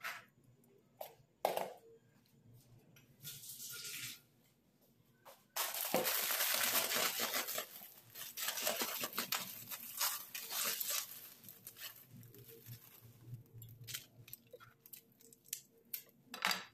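A plastic packet being torn and crinkled by hand: a short rustle, then a loud spell of crackling and tearing a few seconds in, easing into intermittent rustles and small clicks.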